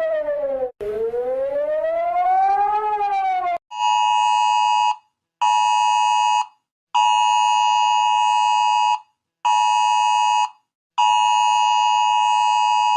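Emergency alert alarm tones: an electronic siren wailing up and down in pitch, which gives way about three and a half seconds in to a steady dual-tone alarm sounding in on-off pulses of one to two seconds each.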